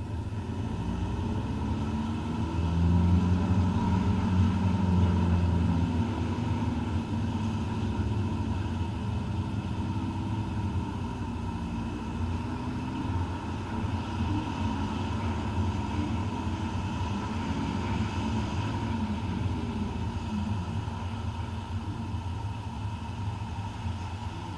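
Car engine and road noise heard from the moving car itself while driving slowly. The engine gets louder for a few seconds about three seconds in as it pulls away, then settles back to a steady run.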